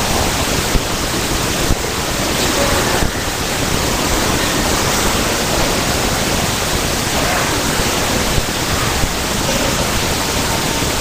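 Steady rushing hiss with no distinct events: the recording's noise floor, heard in the pause between speech.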